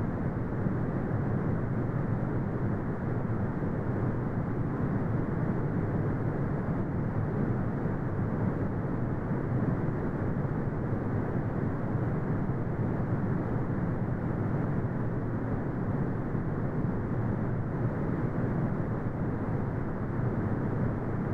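Brown noise: a steady, deep rumbling hiss with most of its weight in the low end and nothing above the midrange, unchanging throughout.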